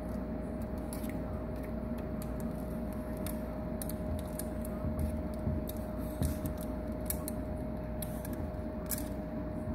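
A turtle's claws clicking and scraping on a hard aquarium rock ledge as it tries to climb out of the water, with irregular clicks and a few soft thumps in the middle, over the steady hum of the tank's water filter.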